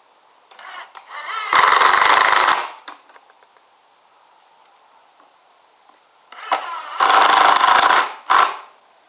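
Power drill running in two bursts of about two seconds each, picking up speed at the start of each burst.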